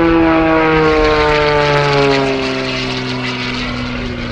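Wolf Pitts Pro aerobatic biplane's piston engine and propeller passing by in flight, a steady drone that falls smoothly in pitch as it goes past, then levels off and fades slightly.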